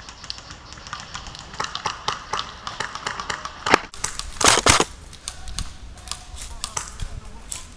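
Airsoft guns firing: scattered sharp single shots, with a rapid burst of fire about four and a half seconds in, the loudest sound.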